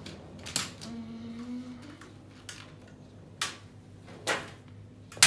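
Colour pencils clicking and clattering against each other and their box as a red pencil is picked out: a few separate sharp knocks, the loudest just before the end.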